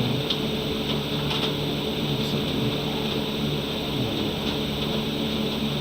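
A steady mechanical hum with several low tones and an even hiss, and a few faint clicks.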